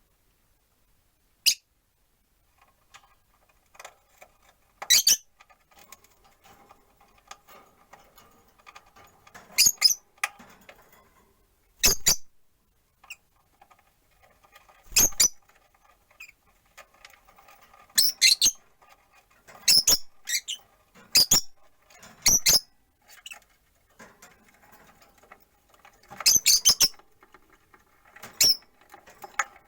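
Rosy-faced lovebirds giving short, sharp, high-pitched chirps every few seconds, some in quick pairs, with faint background noise between the calls.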